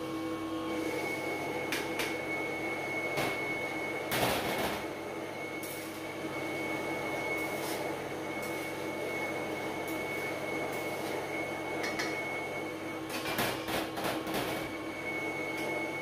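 Electric colloid mill grinding peanuts into peanut butter, its motor running with a steady hum and a high whine. A few short noisy bursts come about four seconds in and again near the end.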